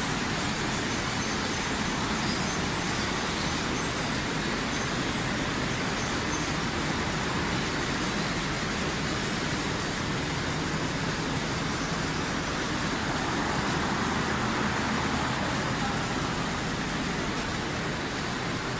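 Tortilla production line machinery running: a steady whir and hum from the conveyor drives, unchanging throughout, with one short knock about seven seconds in.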